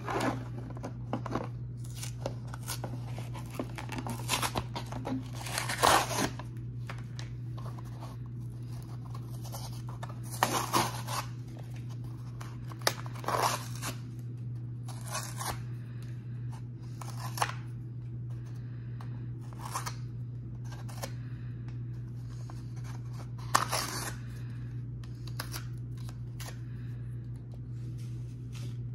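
Cardboard backing of a Hot Wheels blister pack being torn and peeled off its plastic blister by hand, in a series of short rips and crackles with pauses between them.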